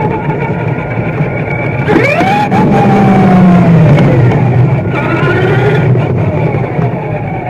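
Radio-controlled car's motor and drivetrain whining, heard from on board the car. The pitch climbs sharply as it accelerates about two seconds in and falls away as it slows, then rises and falls briefly once more.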